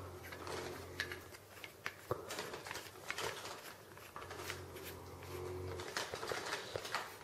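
Small clicks and scrapes of a Samson C01U microphone being turned and screwed into its mount by hand. A faint low hum comes in twice, for about a second each time.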